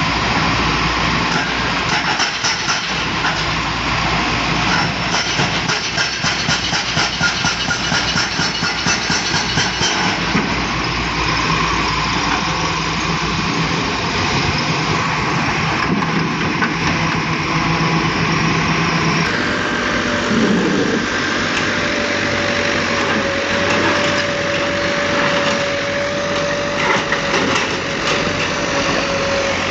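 Volvo excavator's diesel engine running under load as it works, with quick rhythmic ticking in the first third. A steady whine comes in past the middle and holds to the end.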